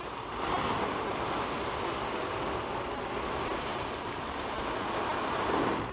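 Water from a garden hose spraying steadily onto a dome tent's fabric in a hiss of water, during a leak test of the tent. The spray stops near the end.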